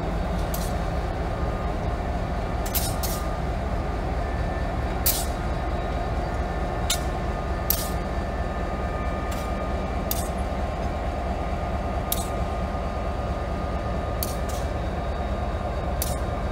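EMD GP50 diesel-electric locomotive's 16-cylinder prime mover running with a steady low rumble as the locomotive moves slowly along the track, with scattered sharp metallic clicks.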